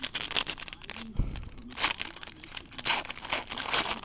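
Crinkling and tearing of a trading-card pack wrapper being ripped open and handled, in irregular crackly bursts.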